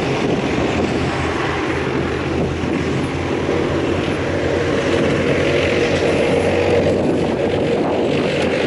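Main battle tanks driving across a dirt range: a steady, loud engine drone with a low hum, getting slightly louder in the second half.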